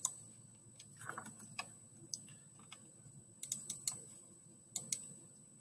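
Irregular clicks from a computer mouse and keyboard being worked, about a dozen light clicks spread unevenly, with a few close pairs.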